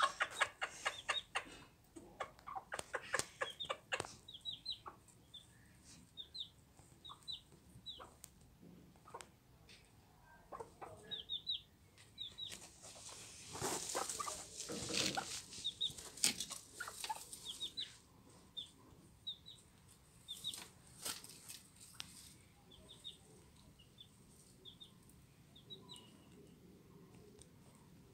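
Hens clucking in quick runs of low clucks, the food call that calls a chick to something to eat, while the chick peeps in short high cheeps throughout. About halfway through there are a few seconds of rustling, scuffling noise.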